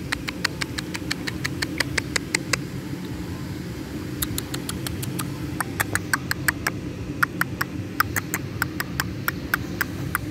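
A squirrel's rapid clicking alarm chatter: sharp clicks at about five a second, breaking off for about a second and a half partway through, over a steady low background hum.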